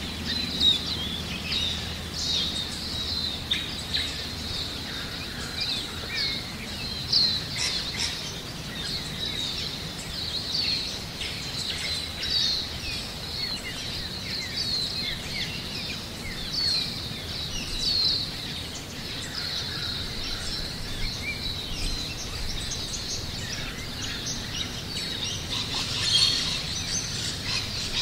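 Many small birds chirping and twittering without a break, a dense chorus of short, high calls over a steady low background hum.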